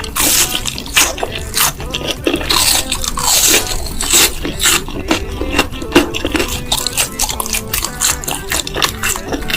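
Close-up eating sounds: repeated irregular crunching and chewing of food, over background music.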